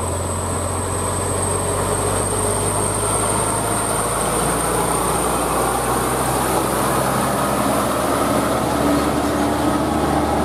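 Hino FM-series tractor truck's diesel engine running under load, with tyre and road noise from its heavily loaded multi-axle lowbed trailer, steady and loud as it drives past.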